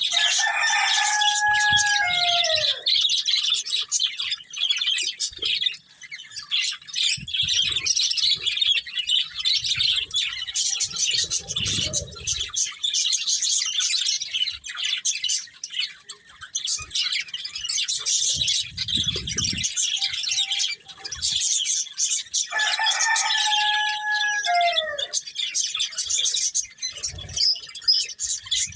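Budgerigars chattering and chirping continuously in a busy, high-pitched warble. Twice, near the start and again about 23 seconds in, a lower, drawn-out call rises over them, held on one pitch and then falling away.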